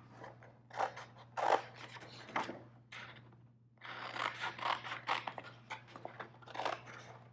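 Small scissors snipping through cardstock in a few short cuts, a pause about three seconds in, then a quicker run of snips.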